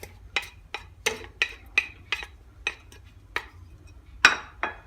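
A spoon knocking and clinking against a cooking pot as grated onion is tipped in, a run of sharp clinks about three a second, the loudest one near the end.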